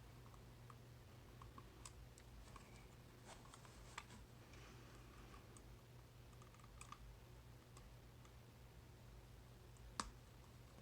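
Faint, scattered small clicks of a tubular lock pick working the pins of a coin-bag tubular lock, with one sharper click near the end, over a steady low hum.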